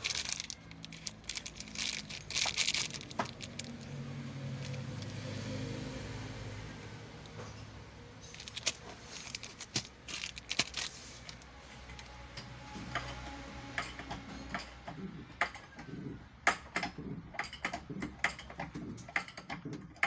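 Replacement cylinder head gasket and valve stem seals being handled in their plastic packaging: plastic crinkling and rustling, with many sharp clicks and small clinks of the seals inside the bag.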